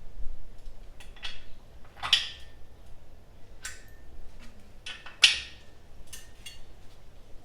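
Metal tools and parts clinking and knocking against each other on a workbench, with a handful of sharp contacts. The two loudest come about two and five seconds in, each with a brief metallic ring.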